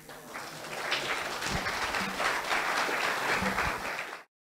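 Audience applauding, building up over the first second and holding steady, then cut off abruptly near the end.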